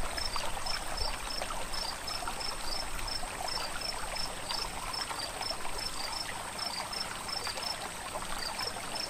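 Steady trickling of running water with small crackling splashes, and an insect chirping in short high pulses at a regular beat.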